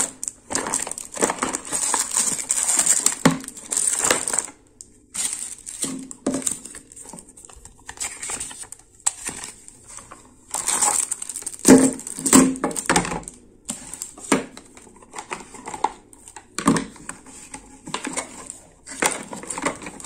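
Cardboard packaging rustling and scraping as the flaps and inner tray of a TV box's retail box are opened and its contents (power adapter, cable, remote) are moved about, with scattered light knocks.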